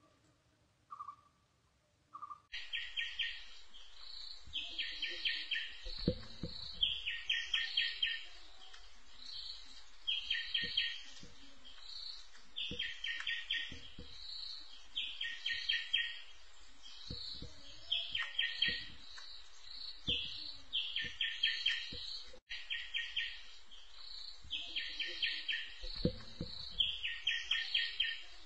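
Bird calling: a few short single whistles, then from about two seconds in a repeated phrase every two to three seconds, a rapid run of notes followed by a higher note.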